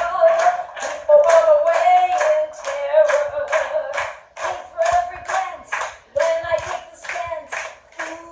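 An audience clapping along in a steady beat, about three claps a second, while a woman sings held, sliding notes over it.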